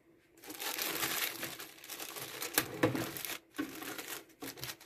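Clear plastic bag crinkling and rustling as the boxed unit wrapped in it is handled and turned over, with a brief break about three and a half seconds in.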